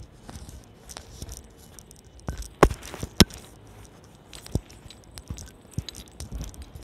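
Handling noise from a handheld camera being moved about: rustling and rubbing, with a few sharp knocks, two of them loud, about two and a half and three seconds in.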